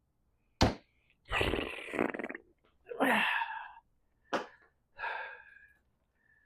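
Hand tools and metal parts being worked: sharp clicks and knocks, a rasping about a second long, and short squeaky metal scrapes.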